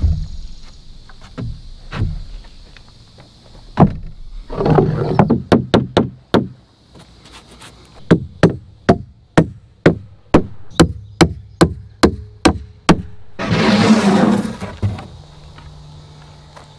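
Claw hammer driving nails into a 2x4 bottom plate on a plywood floor: a few single knocks, then a steady run of blows about three a second, with a short break in the middle. A scraping noise comes before the run and again just after it ends.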